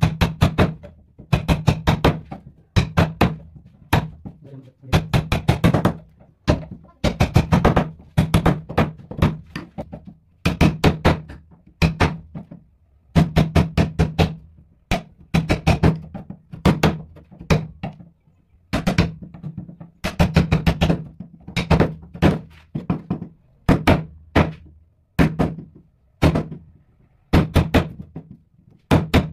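Wood chisel being struck repeatedly to chop a mortise into a thick hardwood block: sharp knocks in quick runs of several blows, with short pauses between runs as the chisel is reset.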